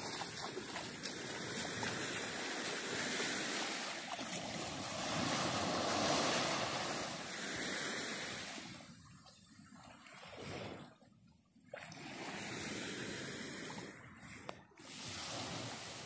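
Small waves from a calm sea washing onto a sandy shore, the wash swelling and fading. It drops away briefly about eleven seconds in, then returns.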